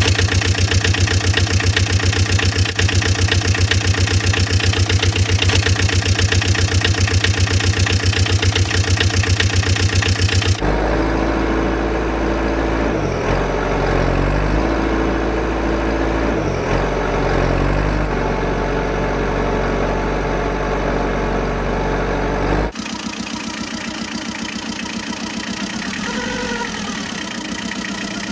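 Engine sound effects laid over toy vehicles: an engine idling with an even, pulsing beat. About ten seconds in it switches abruptly to a heavier, lower-pitched engine sound whose tones shift, and near the end it switches to a quieter idling engine.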